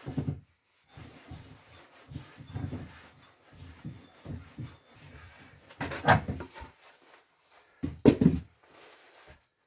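Irregular knocks and clunks of wooden vise parts and a threaded rod being handled, with two sharper knocks about six and eight seconds in.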